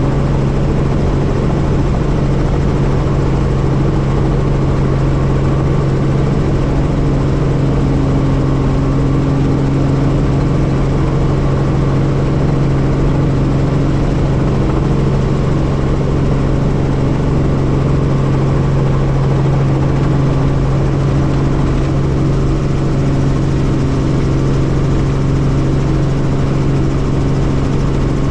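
Helicopter engine and rotor running steadily, a loud constant low drone that does not change.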